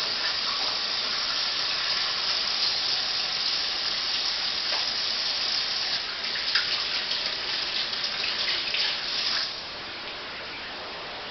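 Kitchen sink tap running steadily while hands are washed under it, then turned off about nine and a half seconds in.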